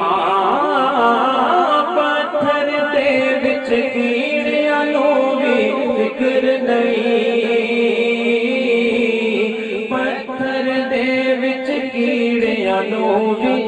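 Devotional chanting by men's voices: a held, drone-like chorus, with a melodic voice wavering up and down over it in the first couple of seconds.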